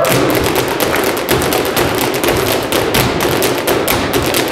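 Irish hard-shoe dancing: a rapid run of sharp taps and clicks from several dancers' shoes striking the floor in time, over a live band playing traditional dance music.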